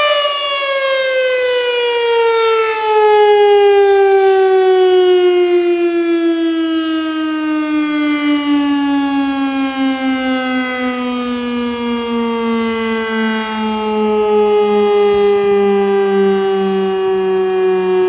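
Federal Signal STH-10 electromechanical fire siren winding down: its loud, steady tone falls slowly and continuously in pitch as the rotor coasts after the power is cut.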